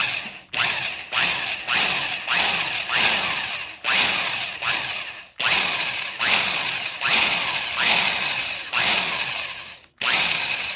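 Electric drill run in short trigger pulses, about two a second, each whirring up sharply and falling in pitch as it slows, while the bit bores into the wooden rifle stock to pull a wandering screw hole back into line.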